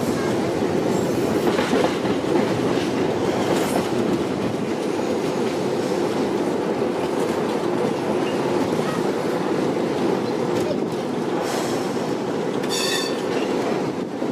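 An excursion tram running along its rails, heard from on board: a steady rumble of wheels and running gear. A brief high squeal, typical of tram wheels on the rails, comes near the end.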